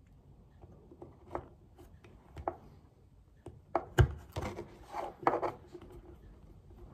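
A plastic card scraping and clicking as it is worked around the rubber diaphragm of a carburettor piston, tucking the diaphragm's edge into place. Irregular light clicks and rubs, busiest in the second half, with one louder knock about four seconds in.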